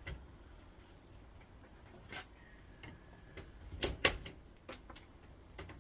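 Plastic cracking and snapping as it is broken apart, a scatter of sharp clicks with the two loudest snaps close together about four seconds in.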